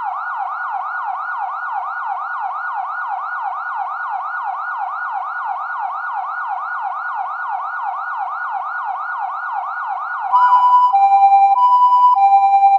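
Electronic siren wailing in rapid rising sweeps, about three a second. About ten seconds in it switches, louder, to a two-tone hi-lo alternation between two notes.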